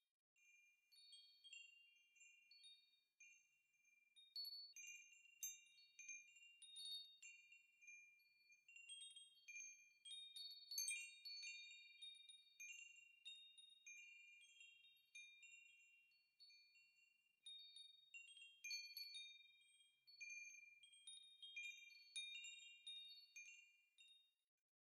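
Faint, high-pitched chimes struck at irregular moments, many ringing notes overlapping and each fading away after it is struck.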